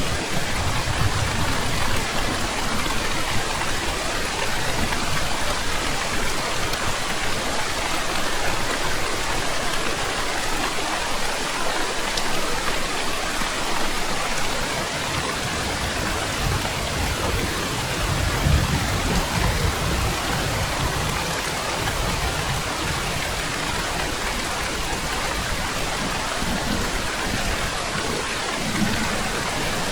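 Steady heavy rain hissing, with low rumbles of distant thunder at the start and again about two-thirds of the way through.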